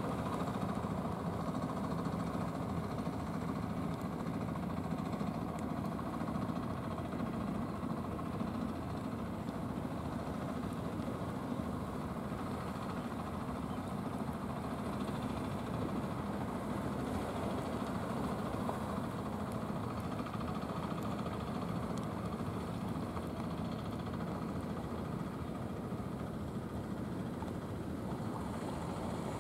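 Engine of an outrigger fishing boat running steadily as the boat motors in toward shore, a low hum with no change in speed.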